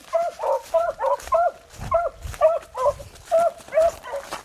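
Beagles baying in short, repeated barks, two or three a second at two slightly different pitches, as hounds do when giving tongue on a rabbit's scent line.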